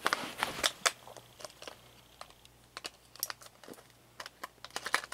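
Scattered light clicks and taps of plastic toys being handled, a few sharper ones in the first second and another cluster near the end.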